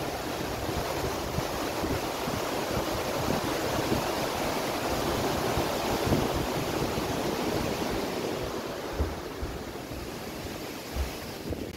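Steady rush of water pouring through the weir on the Meuse, with wind buffeting the microphone. The rush eases off somewhat near the end.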